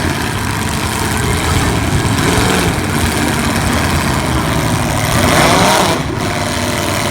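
Several demolition-derby cars' V8 engines running and revving together, louder about five and a half seconds in.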